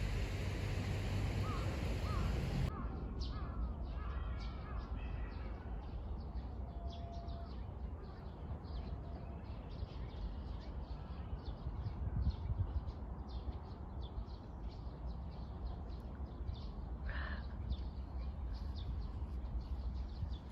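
A crow cawing about five times in quick succession in the first few seconds, with one more call later on, over steady outdoor background noise.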